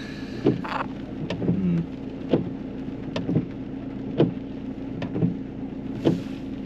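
Car engine idling, heard from inside the cabin, with a short sharp click recurring about once a second.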